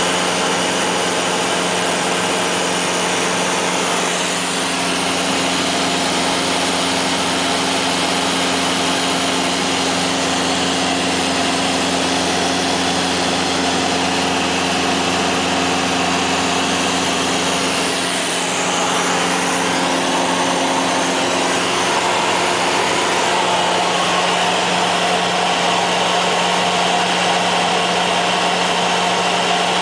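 Light aircraft's engine and propeller droning steadily, heard from inside the cabin with wind noise over the airframe. The engine note shifts slightly about two-thirds of the way through.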